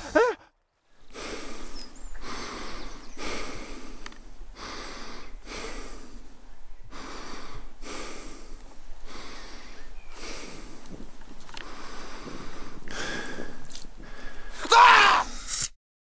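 A person breathing heavily and raggedly, about one breath a second, then a short, loud pitched cry near the end that cuts off suddenly.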